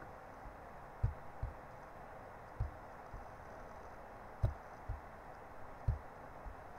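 Soft, dull low thumps, mostly in pairs about half a second apart and recurring roughly every second and a half, over a faint steady hiss.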